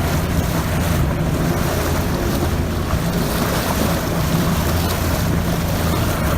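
Motorboat under way, its engine a steady low hum under wind buffeting the microphone and the rush of water.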